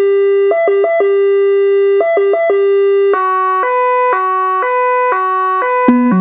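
Whelen Carbide electronic siren sounding a steady note broken by three quick higher blips, repeating about every 1.5 s. About three seconds in it switches to the Dutch "Holland Slow" two-tone, alternating high and low notes about twice a second. Just before the end the Howler low-frequency siren speaker joins in with a deeper pair of notes, starting with a click.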